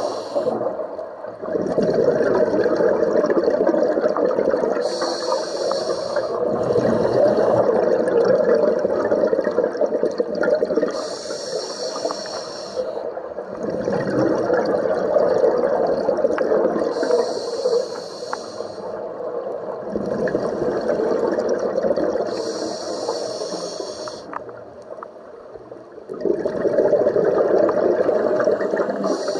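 Scuba diver breathing through a regulator underwater: a short hiss on each inhale, then a longer rush of exhaled bubbles, about every six seconds.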